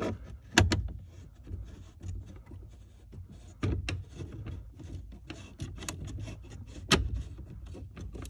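Hand-handling noise of fitting a mount and threading a thumb screw: light rubbing with scattered small clicks and knocks, the sharpest about half a second in and again near the end, over a steady low hum.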